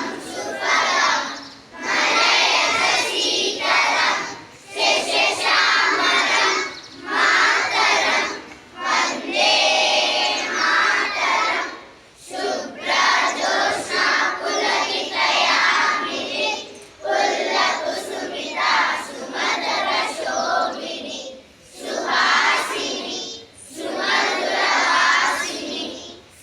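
Many children's voices in unison, in loud phrases a second or two long with short breaks between them.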